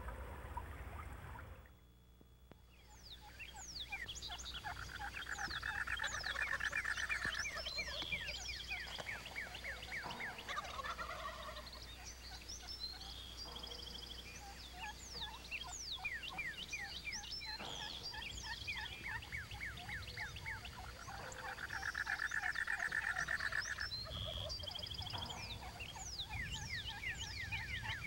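A wild turkey gobbling twice, a long rattling call about five seconds in and another about twenty-two seconds in, over many small songbirds chirping throughout.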